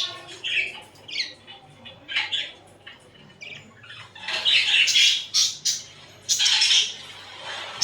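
Budgerigars chattering in a run of short chirps, with louder harsh squawks about halfway through and again near the end.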